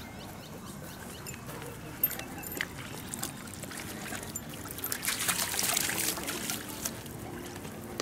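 A dog wading into a shallow, rocky river, water splashing around its legs, loudest about five seconds in, over the steady trickle of the stream.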